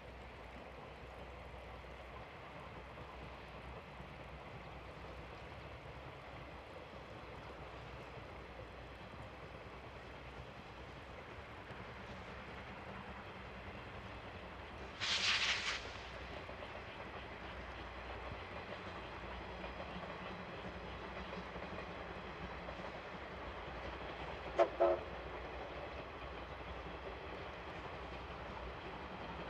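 C58 steam locomotive hauling a train at a distance, a steady running noise under everything, with one loud whistle blast lasting about a second around halfway through. Two short sharp sounds follow near the end.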